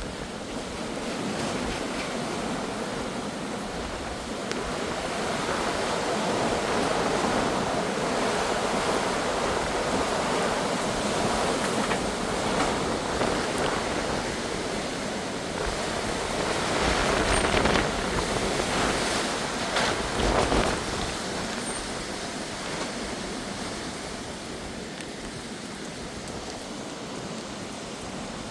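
Very strong gusty wind rushing steadily, swelling in gusts and loudest about two-thirds of the way through before easing off, with wind buffeting the microphone in a few low thumps.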